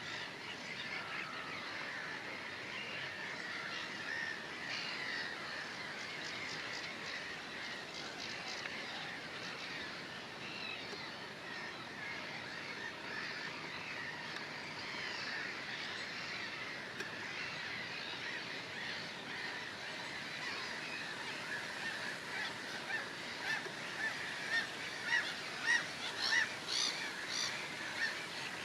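Many gulls calling at once, a dense chorus of short overlapping cries. Louder calls repeat about once a second over the last several seconds.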